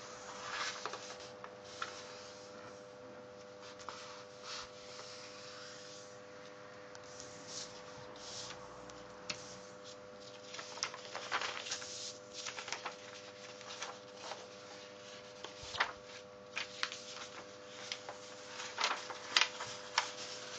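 A sheet of paper being folded by hand: irregular rustles, slides and crinkles as it is moved, flattened and creased, with sharper, louder creasing sounds in the second half. A steady hum sits underneath.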